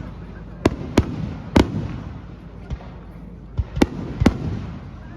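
Fireworks bursting: about seven sharp bangs at uneven intervals, some close together, each followed by a short echoing tail.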